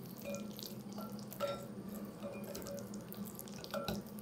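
A metal spoon stirring thick, wet carrot and flour batter in a glass bowl, with short clicks and a few brief ringing clinks of the spoon against the glass, the loudest about a second and a half in and near the end. A low steady hum runs underneath.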